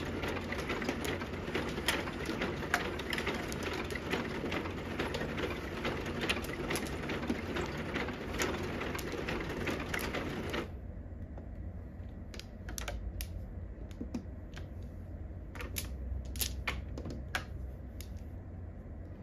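Mahjong tiles clicking as players draw and discard on an automatic mahjong table. A dense clatter of many quick clicks runs for about the first ten seconds, then stops suddenly, leaving separate tile clicks over a low steady hum.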